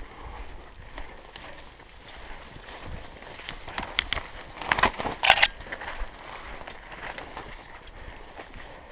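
Footsteps through dry woodland undergrowth: leaf litter crunching underfoot and twigs and branches crackling, with a burst of loud snaps about five seconds in.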